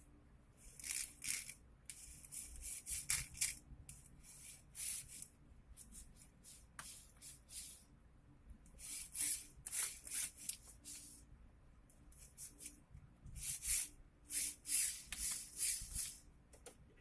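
Scratchy rubbing and handling noises in short bursts and clusters, from the parts of a cordless drill being worked on by hand during disassembly.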